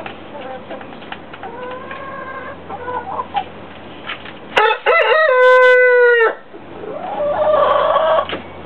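Rooster crowing once, loud and held for about a second and a half, about halfway through. Softer calls come before it and a hoarser call near the end.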